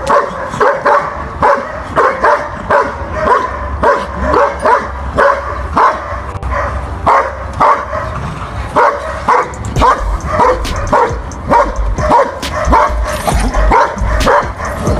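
A working protection dog barking repeatedly and steadily, about two barks a second, as it is worked on a barrel bite sleeve. A low rumble joins underneath from about ten seconds in.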